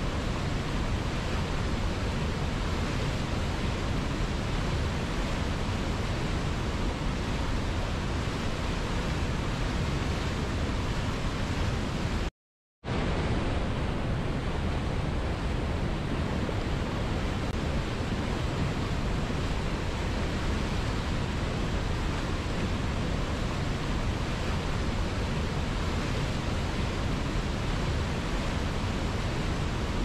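Waterfall and white-water rapids rushing over boulders, a steady, even rush. About twelve seconds in, the sound cuts out completely for about half a second, then comes straight back.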